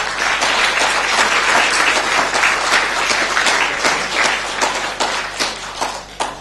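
Audience applauding at the end of a talk: dense clapping from many hands that thins out to a few last claps and stops near the end.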